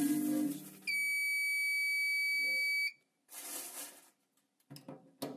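The feeder of a weighing filling machine hums as tea granules run into the weigh hopper, then stops about half a second in. Just under a second in, the machine gives one long, steady electronic beep lasting about two seconds, the signal that the set target weight has been reached. A few light knocks follow near the end.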